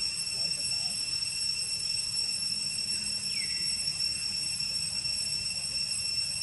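Steady high-pitched insect drone, with one short falling squeak a little over three seconds in.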